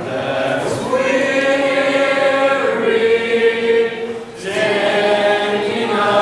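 Congregation singing an invitation hymn a cappella, many voices holding long notes, with a short break between phrases about four seconds in.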